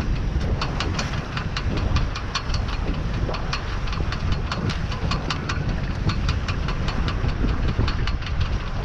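Wind rumbling on the microphone of a small sailboat under sail, with rapid, irregular ticking or slapping over it, a few clicks a second.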